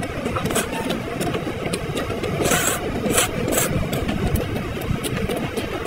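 Slurping and crunchy chewing of seaweed salad, in a few short bursts about halfway through, over a steady low rumble.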